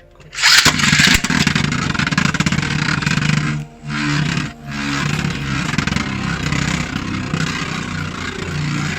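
Beyblade Burst top (Emperor Forneus on a Wheel disc and Destroy driver) rush-launched with a sudden rip less than a second in. It then spins and scrapes around a plastic stadium with a steady whir that drops away briefly twice near the middle.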